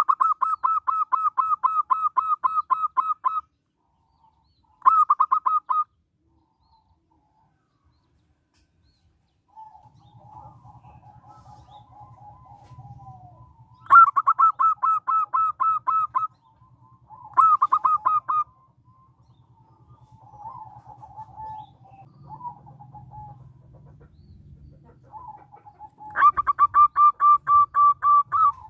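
Zebra dove (local perkutut) calling in bouts of rapid, evenly pulsed notes, about six or seven a second, each bout lasting one to three seconds. Five loud bouts come through, and softer, lower cooing trills fill the gaps in between.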